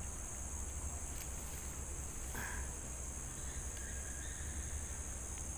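Steady, high-pitched chirring of insects, unbroken throughout, over a low rumble.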